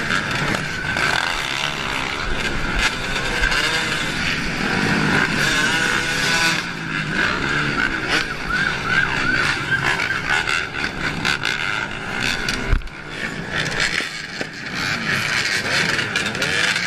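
A pack of dirt bikes and quads running and revving, their engine pitch rising and falling again and again, with one sharp knock about three-quarters of the way through.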